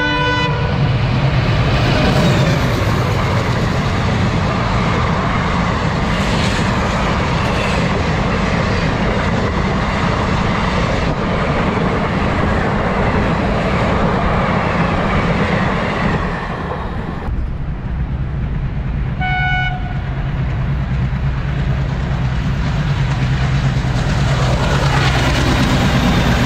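An express train passing at speed: a horn blast ending about half a second in, then the coaches rushing past with the clatter of wheels on rail. About seventeen seconds in the sound changes suddenly to a WDM3C diesel locomotive giving one short horn toot, then passing with a deep engine rumble that grows louder.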